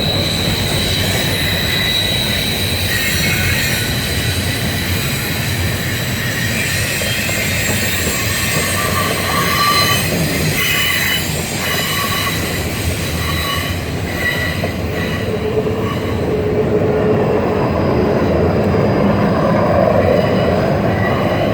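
CSX intermodal freight train's cars rolling past with a steady rumble of wheels on rail. High-pitched wheel squeal comes and goes over it.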